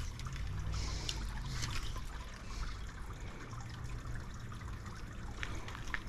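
River water trickling and flowing steadily, with a few light clicks.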